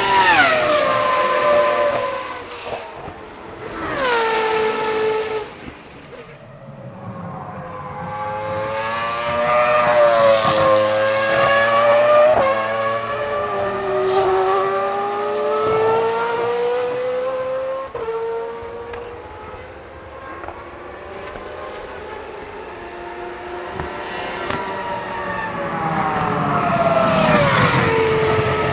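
Single-seater racing cars passing at high revs, the engine note dropping sharply in pitch as each goes by: one pass right at the start, another about four seconds in, and a last one near the end. In between, engines rise and fall in pitch through gear changes as cars work through the circuit.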